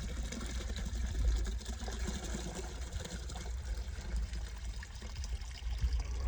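A bucket of pond water being poured out, the water pouring and trickling steadily over a low rumble.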